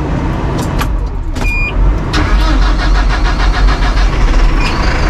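Massey Ferguson 5S.145 tractor's AGCO Power 4.4-litre four-cylinder diesel starting up and settling into a steady idle, heard from the cab with the door open. A short electronic beep sounds about a second and a half in, and the engine grows louder and more even from about two seconds in.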